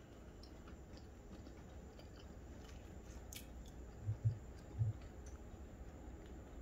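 Quiet background with three short, soft, low thumps about four to five seconds in.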